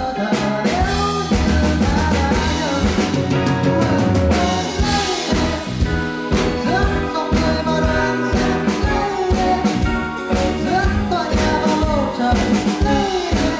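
Live band performance: a male singer sings a melody into the microphone over a band with a drum kit keeping a steady beat and a low bass line.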